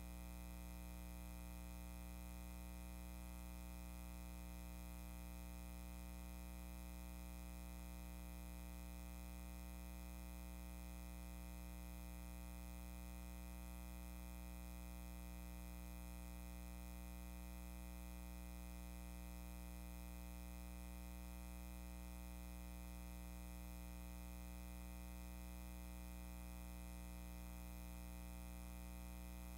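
Faint, steady electrical hum with a buzz of overtones, unchanging throughout, with no other sound.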